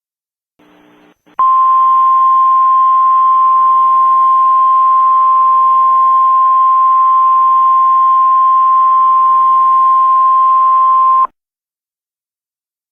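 Emergency Alert System attention tone: one loud, steady high-pitched tone that starts about a second and a half in, holds for about ten seconds and cuts off abruptly.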